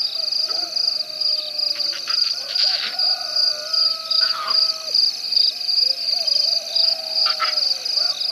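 Night chorus of frogs and insects at a waterhole: a high, steady pulsing chirr about twice a second over lower, wavering calls, with a few brief clicks.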